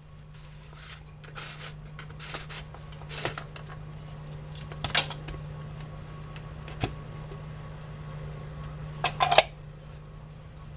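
Scattered light clicks and clatters of kitchen items being handled, with a louder cluster near the end, over a steady low hum.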